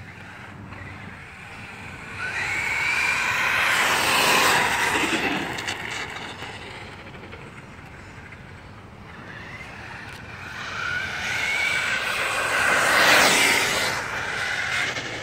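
Traxxas brushless RC monster truck on a 4S battery making two high-speed passes on asphalt. Each pass is a rising and falling motor whine mixed with tyre noise, swelling loud as the truck goes by and then fading.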